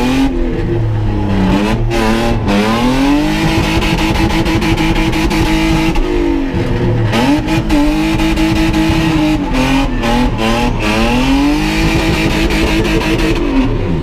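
BMW 525i E34 straight-six engine heard from inside the cabin, revving hard through a slalom: the revs climb, hold high for a couple of seconds, drop, and climb again, three times over.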